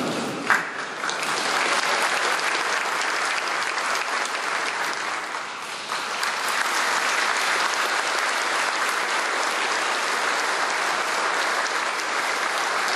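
A large audience applauding steadily, a dense patter of many hands clapping. About half a second in there is a single sharp knock, louder than the clapping.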